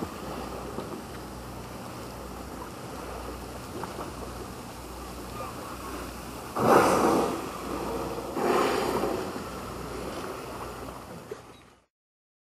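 Steady low hum of a boat's engine under wind and sea noise, with two louder, rougher swells of sound about seven and eight and a half seconds in. It all cuts off suddenly just before the end.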